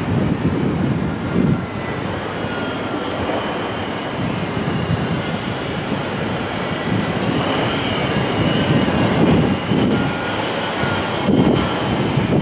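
Class 66 diesel freight locomotive approaching in the distance: a steady low engine rumble with faint whistling tones, under gusts of wind on the microphone.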